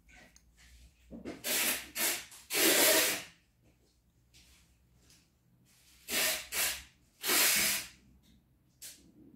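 A person breathing close to the microphone: two short breaths and then a longer one, heard twice with a pause between.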